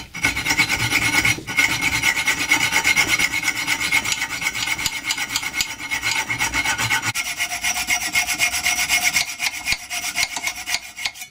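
Hacksaw cutting steel: steady back-and-forth strokes through a Stanley claw hammer head clamped in a vise, each stroke rasping with a metallic ring. The ringing tone drops lower about seven seconds in.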